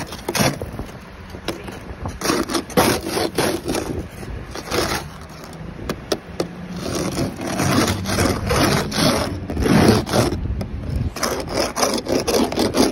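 An ice scraper scraping freezing-rain ice off a car in many irregular strokes.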